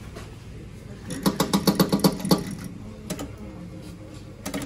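Toy claw crane machine running as the claw is moved and dropped: a rapid, rhythmic mechanical buzz of about nine pulses a second for a little over a second, then a few separate clicks near the end.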